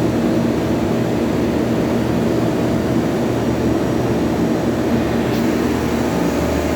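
Walk-in freezer's refrigeration unit running steadily after start-up, a loud, even mechanical hum with a few constant tones from the compressor and fans.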